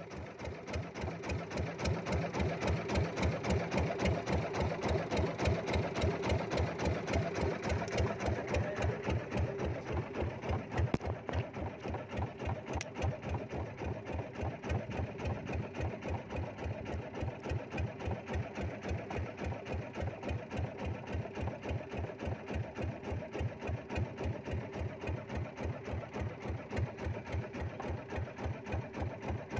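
Small inboard engine of a wooden boat running slowly at trolling speed, a steady, even pulse of several beats a second.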